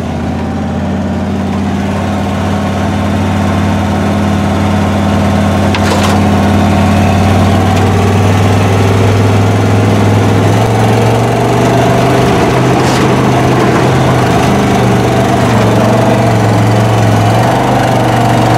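Off-road vehicle's engine running steadily while driving, heard from inside the cab. The engine note steps up slightly in pitch about ten seconds in, and there are two brief clicks.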